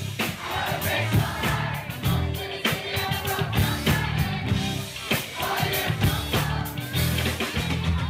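Live pop-rock band playing through a PA: drum kit keeping a steady beat under bass, electric guitars and keyboard, with a woman singing lead into a microphone.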